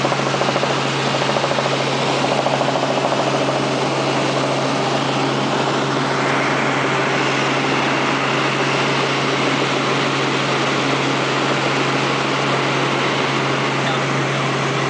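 Steady engine and rotor drone heard from inside a helicopter cabin, a constant low hum under a wide hiss.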